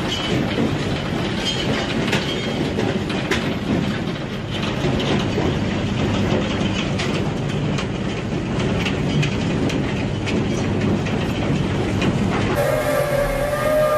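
Industrial shredding machine running, a loud continuous grinding clatter with many irregular knocks and crunches. Near the end it cuts suddenly to a steady pitched whine.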